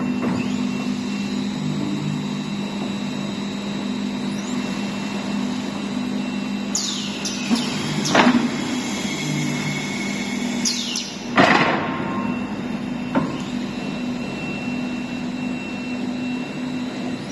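Woodworking machinery running with a steady hum, broken by three sharp knocks through the middle and a couple of brief high squeals just before two of them.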